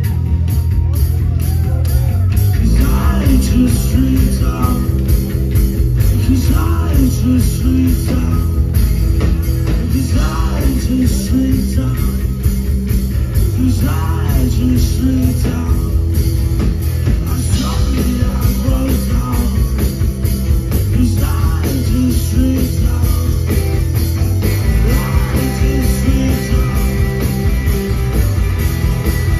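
Live rock band playing, with electric guitars, bass guitar and a drum kit under a lead singer's voice.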